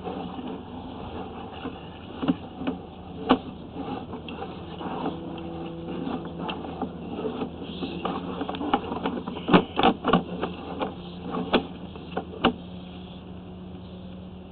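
Sewer inspection camera's push cable being fed into the line, with scattered sharp clicks and knocks that come thickest in the second half, over a steady low hum.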